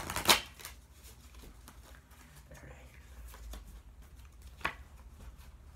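A tarot deck being shuffled and handled: a short burst of card noise at the start, then soft, faint rustling of the cards with a single sharp tap near the end.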